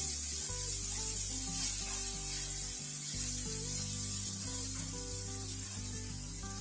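Sliced onion and green capsicum sizzling in hot oil in a nonstick kadai as they are stir-fried with a wooden spoon. Background music with slow, held notes plays underneath.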